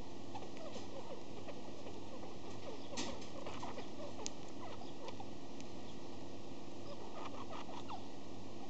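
Pet budgie making a run of soft, quick little squeaks and clicks, with a few sharper clicks; these are the odd sounds the owner takes for the budgie having the sniffles. A faint steady hum lies underneath.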